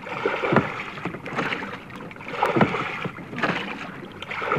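Oars of a rowing boat dipping and pulling through water, a splashing stroke about every two seconds over a steady wash of water.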